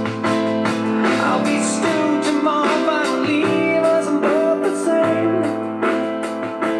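Music: a guitar-led song with a steady beat, played back through the amplifier and speakers during the demo.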